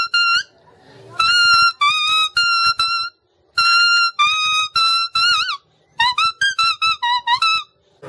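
A tree leaf held against the lips and blown as a reed, playing a melody of short, high, reedy notes in quick phrases with brief pauses between them, some notes bending in pitch at the phrase ends.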